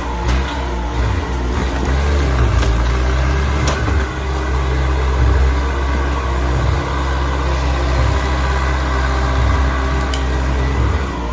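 Log skidder's diesel engine running steadily under load, its pitch shifting a little every second or so as it hauls a single very long log, with a few sharp clicks or knocks.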